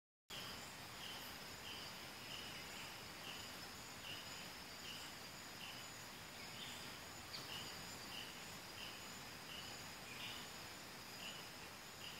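Faint insect chorus: two steady high-pitched trills with a short chirp repeating about three times every two seconds over a light hiss, starting abruptly just after the beginning.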